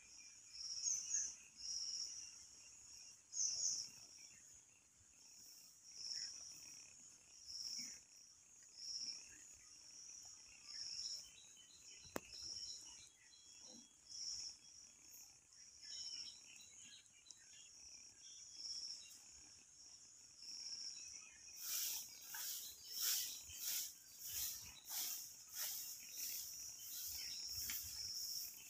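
Faint insects chirping outdoors in short high-pitched pulses about once a second, turning into a faster, harsher run of rasping pulses for the last several seconds.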